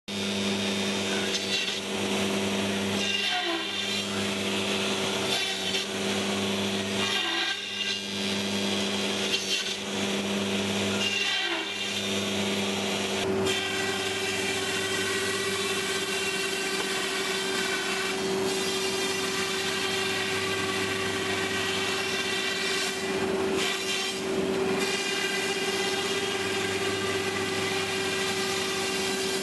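Techno CNC router spindle running a long bit through a block of expanded polystyrene foam: a steady machine whine over a continuous hiss of cutting. In the first half the sound dips briefly about every two seconds, and the lower hum changes about 13 seconds in.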